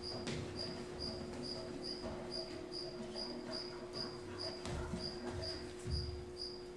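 Cricket chirping at an even pace, about two to three short chirps a second, over a steady low hum, with a couple of dull thumps in the second half.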